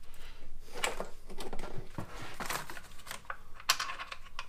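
Irregular light clicks and knocks of bolts and metal parts being handled while an intake manifold is refitted.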